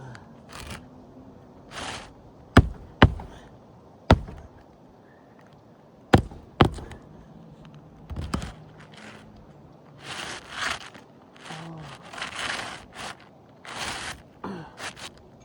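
Five sharp hammer strikes on the roof from a roof hatchet, spread over a few seconds, followed later by several seconds of scraping and rustling of asphalt shingles being handled.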